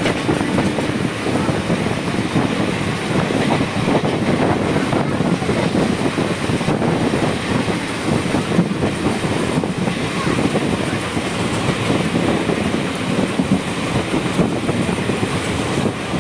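A moving passenger train, the Coimbatore–Madurai Intercity Express: a steady, loud rush of wheels running on the rails.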